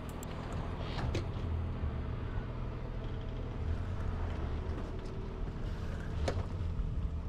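Sailboat's engine running steadily under way, a low constant hum under wind and water noise. Two short sharp clicks, about a second in and about six seconds in.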